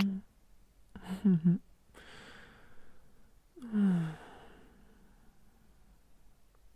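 A man's soft wordless vocal sounds: a brief hum at the start, a short broken voiced sound about a second in, a breathy exhale, then a long sigh falling in pitch about four seconds in.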